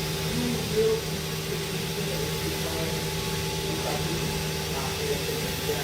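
Steady mechanical hum of milking-shed machinery, with a few held tones over a constant noise.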